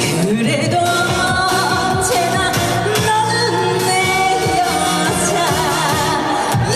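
A woman singing a Korean trot song live over a backing track, with long held notes that slide between pitches; near the end one note swoops quickly downward.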